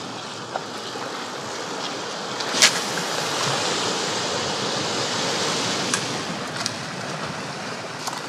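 Sea surf washing and surging against shoreline rocks, a steady rush of water. A single sharp click comes about two and a half seconds in, with a few fainter ticks later.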